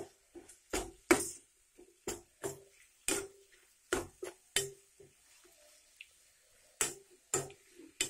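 Steel spoon knocking and scraping against a metal pan while stirring grated raw mango. The clanks come about two to three a second, each with a short ringing tone, and stop for a second or two just past the middle.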